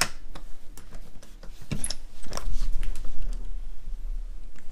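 Camera handling noise: irregular clicks and knocks with a low rumble as hands grip and move the camera.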